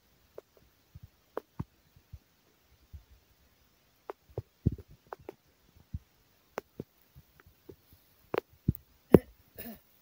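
Scattered soft thumps and clicks at irregular intervals, a few louder ones near the end, with a brief rustle just before the end.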